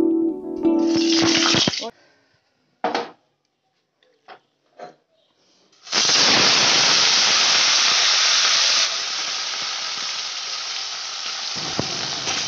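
Small mixed river fish frying in hot oil in a wok: a steady sizzle that starts suddenly about halfway through and eases a little a few seconds later. Before it, the tail of a plucked-string tune and a few short scattered sounds.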